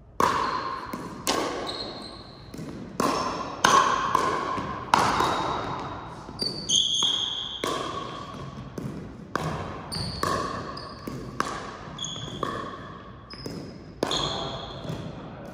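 A doubles rally in a gym: a ball struck back and forth about once a second, each hit a sharp knock that rings on in the echoing hall, with short high squeaks between hits.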